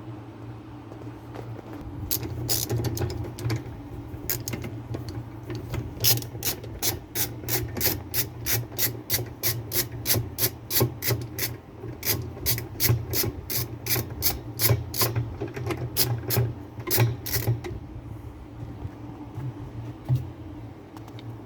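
Ratchet wrench turning out a 7/16 bolt on a washing machine, its pawl clicking in an even run of about three clicks a second for roughly ten seconds, after some scraping and handling of the parts.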